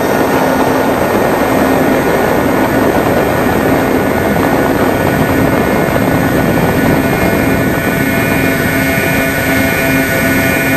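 Onboard audio of a Sonicmodell Binary FPV model plane in flight: steady wind rush over the airframe with the hum of its twin 2212 brushless motors and 8x6 propellers at constant cruise throttle.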